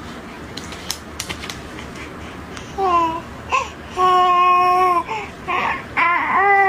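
A baby's voice: a few small clicks, then a short high-pitched call about three seconds in, a long level 'aaah' held for about a second, and another rising call near the end.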